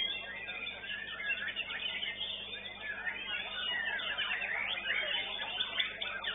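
Caged songbirds, white-rumped shamas among them, singing over one another at a bird-song contest: a dense, unbroken mix of whistles, trills and quick chirps.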